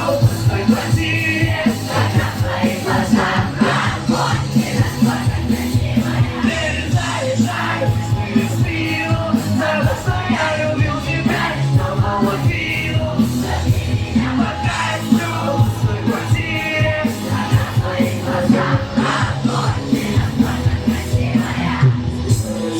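Background music: a Russian pop-rock song.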